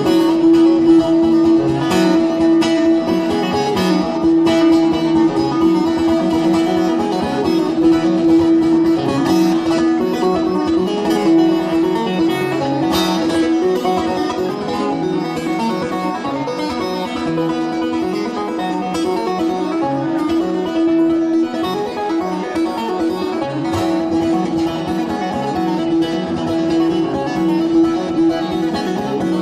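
Bağlama (Turkish long-necked saz) played şelpe style, its strings plucked and tapped with the bare fingers rather than a plectrum, in an instrumental passage over a steady ringing drone note.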